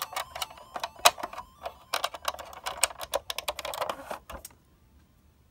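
Quick, irregular clicking and tapping of hard plastic as an action figure is worked into the seat of a plastic toy DeLorean, its jointed limbs knocking against the car's body. The clicks stop about four and a half seconds in.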